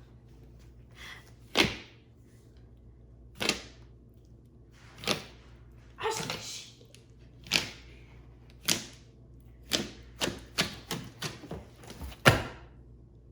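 Thick, clicky homemade slime being squeezed and folded in the hands, its trapped air popping in sharp clicks. There are about a dozen clicks at irregular intervals, coming faster near the end.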